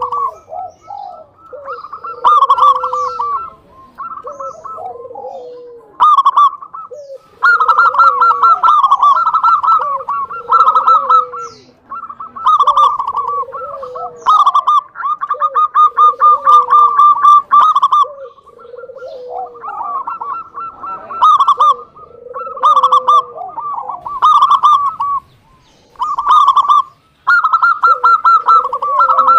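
Zebra dove (perkutut) singing: phrases of quick, rippling coo notes repeated every second or two, each with a lower coo running under it, and short gaps between phrases.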